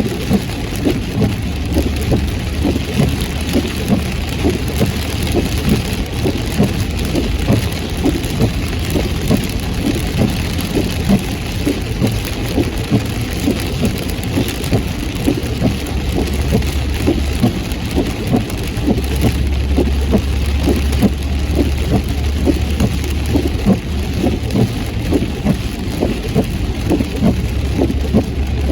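Heavy rain pelting a moving car: a dense patter of drops over a steady low rumble from the engine and tyres.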